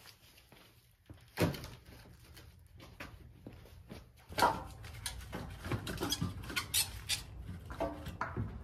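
Split firewood knocking and clattering as pieces are handled and stacked into bundles: a series of knocks, loudest about a second and a half in and again about four and a half seconds in, with quicker, lighter knocks after that.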